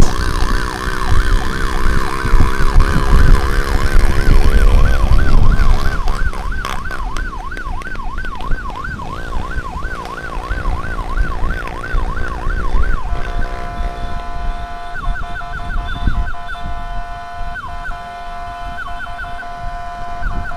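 Emergency vehicle siren in a fast yelp, rising and falling about four times a second, over engine and road rumble. About 13 seconds in it changes to a steady held tone broken by a few short whoops.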